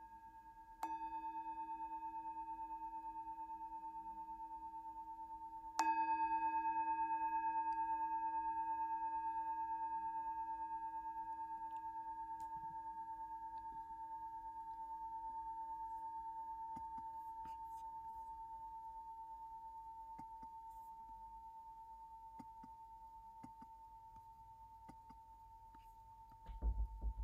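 Metal singing bowl struck twice with a wooden striker, about a second in and again about six seconds in. Each strike rings out in a long, slowly fading tone with several overtones, and the second is the louder. A few low bumps come near the end.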